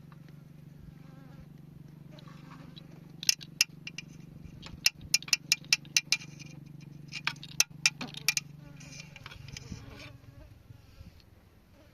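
Small washing machine's motor running with a steady buzzing hum. From about three to eight seconds a series of sharp clicks and rattles cuts through it, loudest in the middle.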